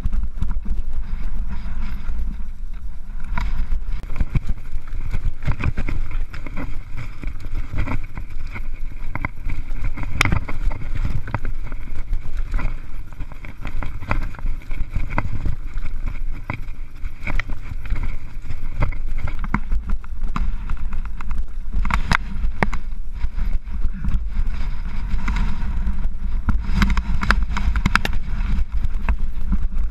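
Mountain bike riding over a rocky trail, heard through an action camera: a low wind rumble on the microphone with constant rattling and clattering of the tyres and bike over stones.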